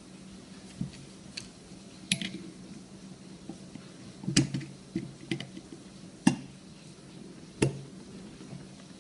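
Irregular metal clicks and taps of needle-nose pliers and a small screwdriver against the steel receiver of an Ithaca 4E shotgun while the top lever's spring is compressed and the lever worked into place. The three sharpest clicks come about halfway through, two seconds later, and near the end.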